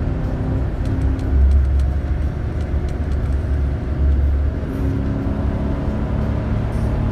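Car driving at speed, heard from inside the cabin: a steady low rumble of engine and road noise with a faint hum.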